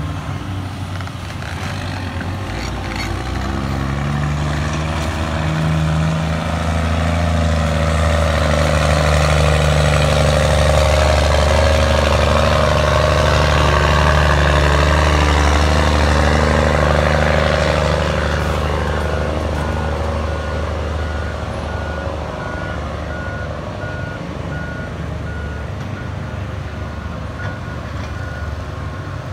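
Diesel engine of a hydraulic excavator running under load, swelling to its loudest in the middle and easing off again. From about two-thirds of the way in, a backup alarm beeps over it again and again.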